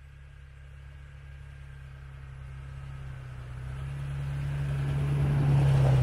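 A Toyota Tacoma pickup approaches on a snow-covered road, its engine hum and the rush of its tyres through the snow growing steadily louder as it nears.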